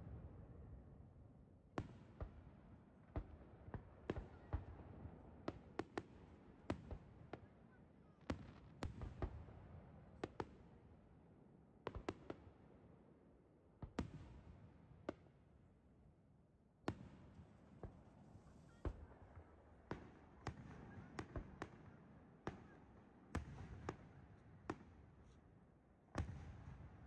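Aerial firework shells bursting: an irregular run of sharp bangs, several close together in places, each leaving a low rumble.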